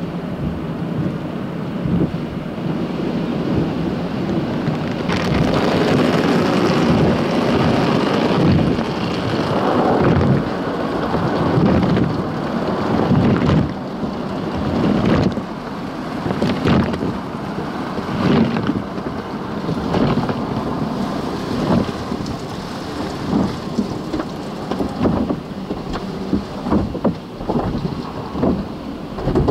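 Cloth strip brushes and water spray of an automatic tunnel car wash beating on the car, heard from inside the cabin as a dense, steady rushing and drumming. In the second half it breaks up into many separate slaps and thumps as the brushes hit the body.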